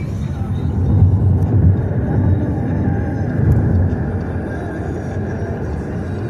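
Car driving: steady low road and engine rumble heard from inside the cabin, swelling briefly about a second in and again midway.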